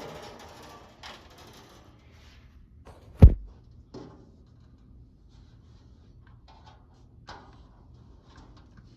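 Knocks and clunks of a metal-cabinet box fan being handled and moved, with one heavy thump about three seconds in and lighter taps and ticks around it. The fan is not running.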